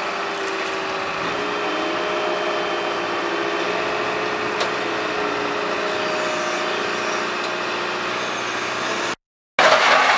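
Mobile crane's diesel engine running steadily under load while hoisting a wrecked truck tractor, its pitch shifting a little about a second in. Near the end the sound breaks off briefly and comes back as a louder rush of noise.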